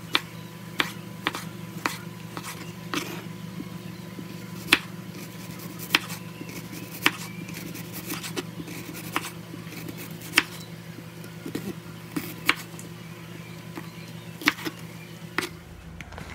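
Chef's knife slicing tomato and red onion, the blade knocking on a wooden cutting board in irregular strokes about once a second, over a steady low hum.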